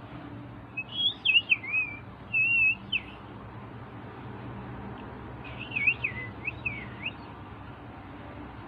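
Budgerigar chirping in two short bouts of quick, wavering chirps, about a second in and again around six seconds.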